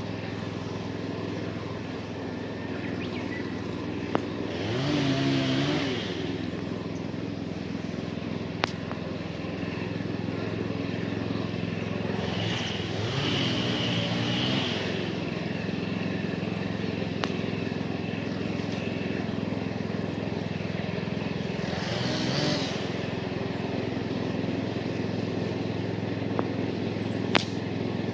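A steady engine hum runs throughout, with three louder swells that bend in pitch, about five, thirteen and twenty-two seconds in, and a few sharp pops.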